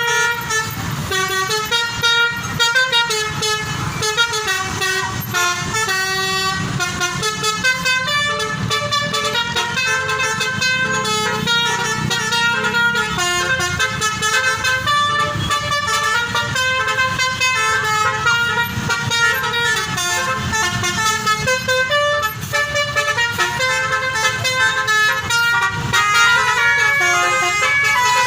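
Several basuri musical horns on buses or trucks playing tunes at the same time, their notes overlapping and clashing in a horn battle, with a low engine rumble underneath.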